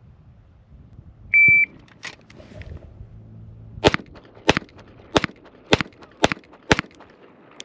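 A shot timer gives one short beep, and about two and a half seconds later a 9mm Springfield Armory Prodigy pistol fires six rapid shots, roughly half a second apart: a bill drill run against the timer.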